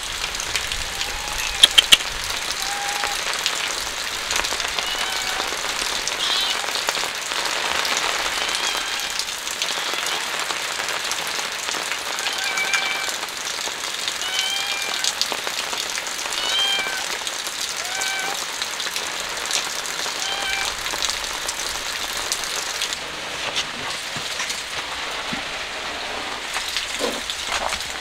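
Steady rain falling, with a cat mewing in short, high calls repeated many times over the first twenty seconds. A few sharp clicks sound in the first two seconds.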